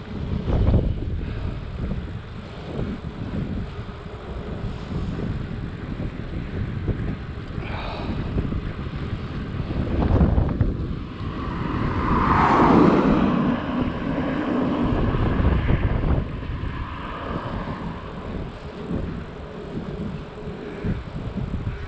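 Wind buffeting the microphone as a hybrid bicycle is ridden, a steady rumbling noise. A louder swell of sound rises about eleven seconds in and fades away some five seconds later.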